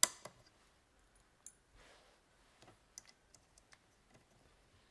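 Small sharp clicks and taps of Siemens Deka fuel injectors being pressed and clipped into a fuel rail by hand, the loudest click right at the start, then smaller ones scattered through.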